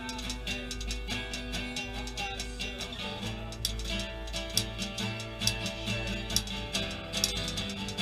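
Acoustic guitar strummed, with typewriter keys clacking along as a percussion part. The clacks come louder and thicker in the second half, and the chords change about three seconds in.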